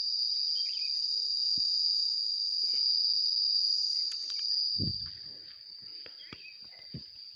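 Insects calling: a loud, shrill, steady high-pitched buzz that gets noticeably quieter about five seconds in, with a few faint knocks later on.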